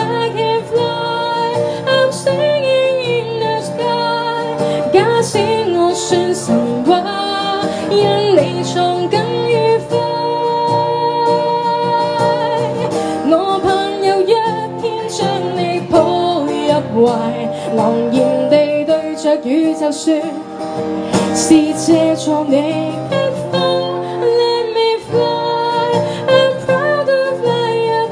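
A woman singing live into a microphone, accompanying herself on a strummed acoustic guitar.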